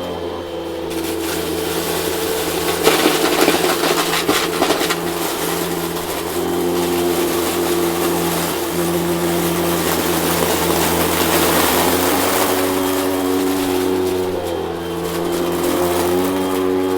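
Vacuum cleaner running with a steady motor hum that shifts in pitch a few times, with a burst of rattling and crackling about three to five seconds in.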